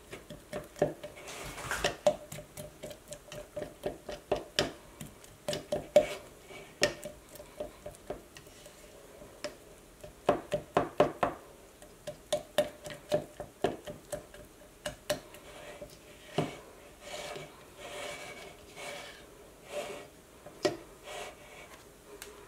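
A spatula stirring sourdough starter of flour and water in a clear container, mixing in the flour, with irregular clicks, knocks and scrapes as it hits and rubs the container's sides. The clicks come quickest about ten seconds in.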